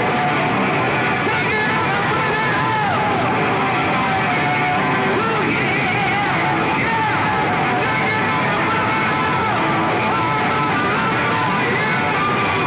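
Live rock band playing: electric guitars and drums, with a high lead line sliding up and down in pitch over them.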